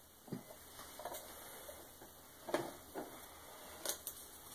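Several light clicks and taps, spaced irregularly, as small hand tools and quarter-inch jack plug parts are picked up and handled on a workbench.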